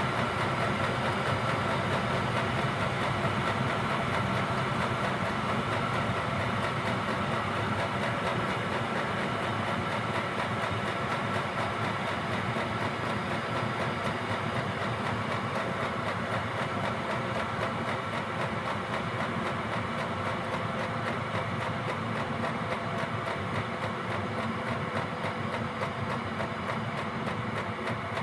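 Gearlasso 8 kW Chinese diesel heater running steadily: combustion fan and burner hum with the fuel pump ticking. The output has just been turned down, so the fan and pump gradually slow and the sound eases a little toward the end.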